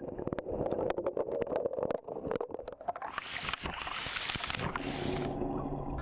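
Raindrops hitting the water surface, heard from under water: separate sharp plinks at first, thickening after about three seconds into a dense hiss that thins out shortly before the end.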